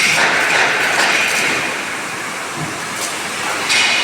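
Electric welding arc burning with a steady crackle. It eases off briefly in the middle and picks up again near the end.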